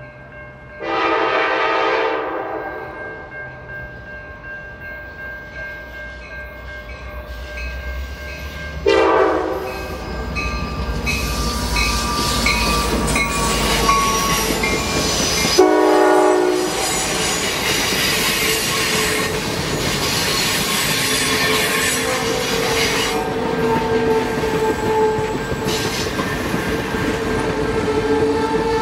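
Passenger train's F59PHI diesel locomotive horn: a long blast about a second in, then two short blasts, near nine and sixteen seconds. From about nine seconds the locomotive and passenger coaches pass close by, with the rumble and clickety-clack of wheels on the rails and a steady whine in the last few seconds.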